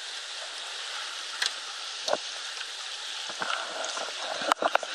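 Steady rush and lapping of shallow river water close to the camera, with a few sharp knocks and splashes, a cluster of the loudest near the end.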